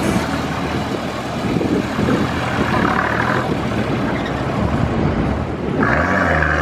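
Four-wheel-drive vehicle driving, with steady engine and road noise; the engine note rises about six seconds in.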